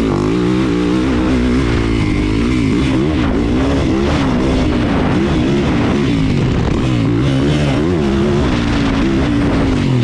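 450 motocross bike's four-stroke single engine under hard riding, its pitch repeatedly rising and falling as the throttle is opened and closed through the track's corners and jumps.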